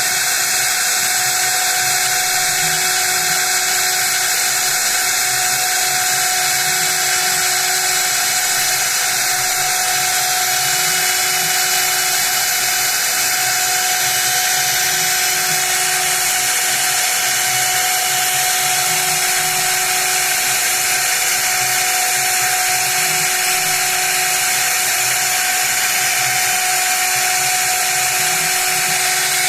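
High-speed spindle of a CNC mill running steadily with a constant whine and a hiss of cutting, as it mills a printed circuit board.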